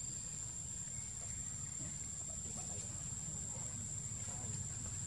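Outdoor ambience: a steady high-pitched drone over a low rumble, with faint short chirps or calls scattered through it.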